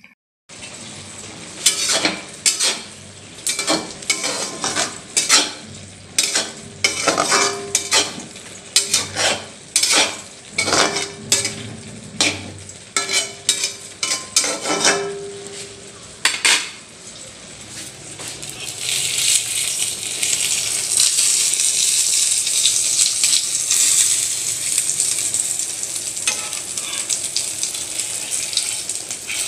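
A metal spoon stirring and scraping in a steel pan of noodles, with repeated clanks that ring briefly. About two-thirds of the way in, this gives way to a steady, loud sizzle of an omelette frying in hot oil.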